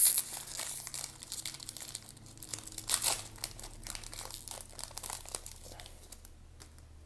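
Hockey trading card pack being torn open by hand, its wrapper crinkling in a dense run of crackles that thins out and stops near the end.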